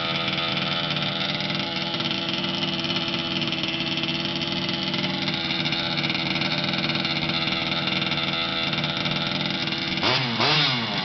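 An engine running through its exhaust pipe, idling steadily, then revved once about ten seconds in, the pitch rising and falling back.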